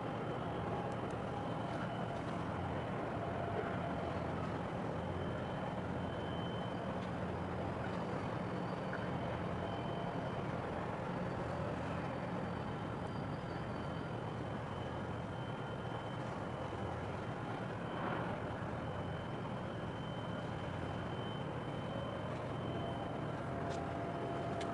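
Steady low drone of harbour tugboats' diesel engines working a large container ship alongside the quay, with a faint high whine that comes and goes.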